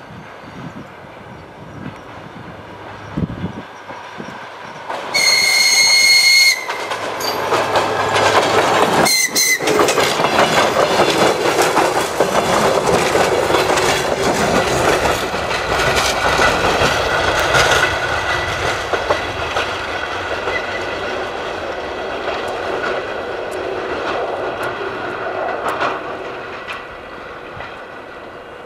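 DR1A diesel multiple unit passing close by. Its horn sounds once, about five seconds in, for about a second and a half. Then comes the loud running of the train, with wheels clattering over the rail joints as the carriages go past, fading as it draws away near the end.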